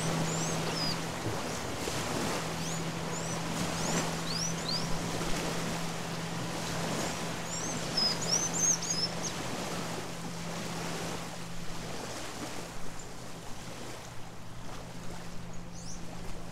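A boat engine drones steadily in the distance and slowly fades, over a steady hiss of wind and water. Small birds chirp in short, quick high notes, in clusters, the busiest around the middle.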